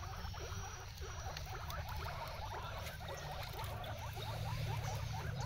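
Guinea pig chewing fresh green leaves and stems: a fast, continuous run of small crunching bites, over a steady low hum.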